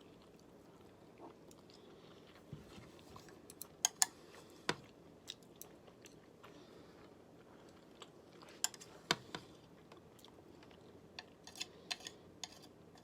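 Close-up eating sounds of someone chewing sashimi, soft wet chewing with scattered sharp mouth clicks and smacks coming in small clusters.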